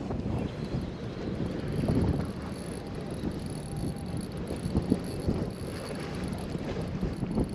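Wind buffeting the microphone over the sea washing against a stone breakwater, a steady rumbling hiss with small irregular knocks.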